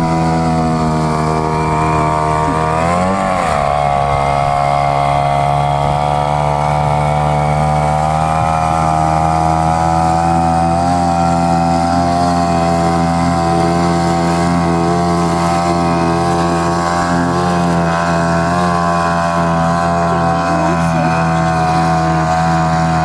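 Homemade outboard motor built from an Ural chainsaw's single-cylinder two-stroke engine on a Kama outboard leg, running loud and steady under way. About three seconds in, the revs dip briefly and pick back up.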